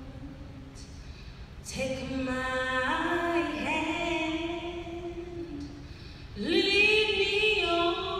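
A woman singing solo and unaccompanied into a microphone: slow, long-held notes that slide between pitches, with a new phrase coming in about two seconds in and a louder one about six seconds in.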